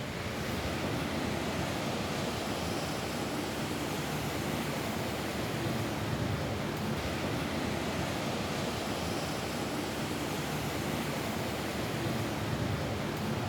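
Steady rain falling on a roof: an even hiss with a low rumble underneath.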